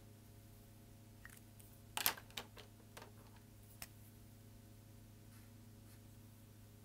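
Plastic marker pens clicking and tapping on a wooden table as markers are swapped: a quick cluster of clicks about two seconds in, loudest first, then a few single taps, over a faint steady low hum.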